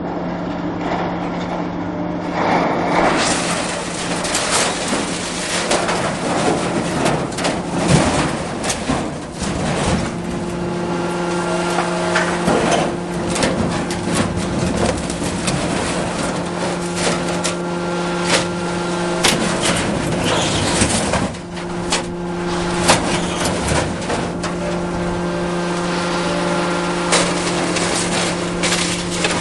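Hydraulic excavator's diesel engine running steadily while its hydraulic scrap grapple digs into and lifts sheet-metal scrap, with repeated clanks and crashes of metal on metal.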